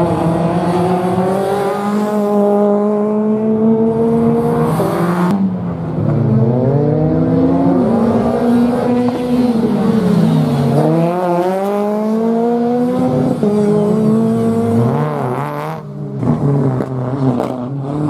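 Subaru Impreza WRX STI rally car's turbocharged flat-four engine, heard from trackside, revving hard as it accelerates and then dropping as it lifts off and slows for corners. The pitch makes one long climb, then rises and falls several times.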